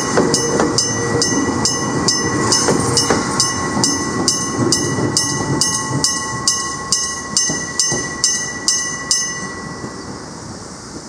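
Electric bell of a Japanese level crossing ringing, struck rapidly at a little over two strikes a second, then stopping about nine seconds in. A train runs underneath the bell.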